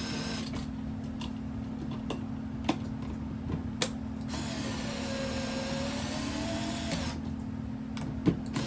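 Cordless Milwaukee screwdriver whirring in two runs as it drives a light switch's mounting screws, the second run longer, with its pitch dipping and then rising. A few sharp clicks fall between the runs.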